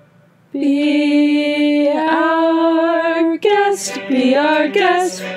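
Young women singing a camp song parody: one long held note, then quicker sung syllables from about three and a half seconds in, over a faint steady low accompaniment.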